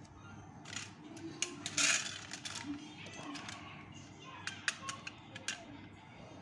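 Hand picking up and handling a small tin toy van: brushing and rustling noises, the loudest about two seconds in, then a few sharp metallic clicks in quick succession past the middle.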